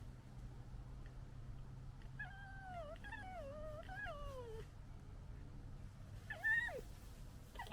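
Young red fox whining: a long, wavering whimper that slides downward in pitch, starting about two seconds in and lasting over two seconds, then a short call that drops sharply in pitch near the end.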